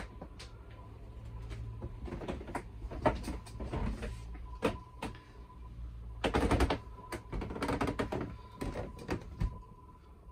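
Scattered knocks, thuds and shuffling footsteps of someone moving about a boat's cabin, the loudest cluster about six seconds in, over a steady low rumble and a faint steady high tone.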